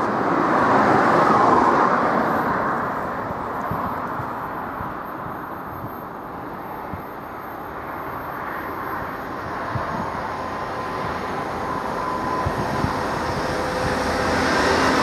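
A Class 66 diesel locomotive's two-stroke V12 engine, heard approaching and growing steadily louder while hauling a container freight train. It follows a broad rushing noise that swells in the first two seconds and dies away.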